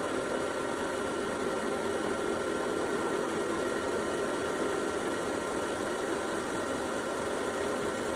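Electric drill spinning a milling bit, running steadily at constant speed with an even motor hum and a faint high whine.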